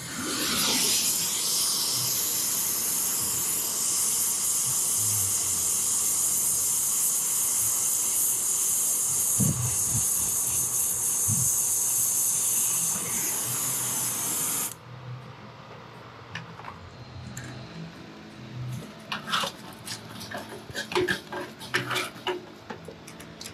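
Oxy-acetylene torch flame hissing steadily as it heats a copper joint of an evaporator coil to unbraze it, then shut off suddenly about fifteen seconds in. Afterwards, light clicks and rattles as the freed coil is handled.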